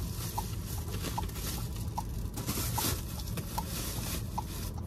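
Car turn-signal ticking evenly, about one tick every 0.8 seconds, over the low hum of the cabin and idling engine, with some brief rustling.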